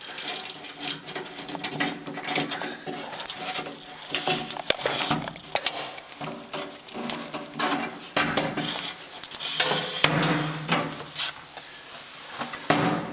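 Handling noise as an electrical cable is fed through a drilled hole in a steel cabinet panel: irregular knocks, clicks and scraping of the cable and hands against the metal.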